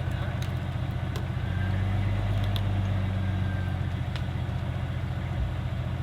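Jeep engine idling steadily while the vehicle waits at the foot of a rock ledge, with a few light clicks scattered over it.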